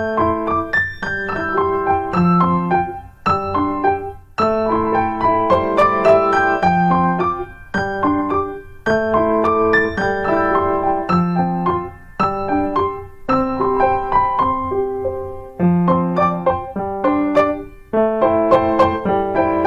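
Piano music: a light melody in short phrases over lower bass notes, with brief pauses between phrases.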